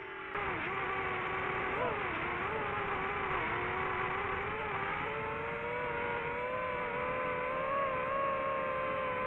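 Quadcopter motors and propellers whining. The pitch dips and wobbles in the first two seconds, then climbs slowly and steadily as the throttle changes.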